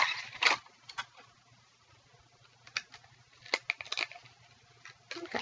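Packaging of a small metal keychain being handled and opened: a short rustle, then scattered small clicks and crinkles with quiet gaps between.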